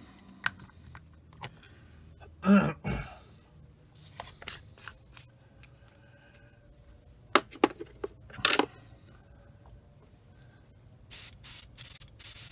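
Small clicks, scrapes and a knock from a paint jar, its lid and an airbrush being handled. Near the end comes a quick series of short airbrush spray bursts, about two or three a second, blowing the thinner out of the needle tip before the paint comes through.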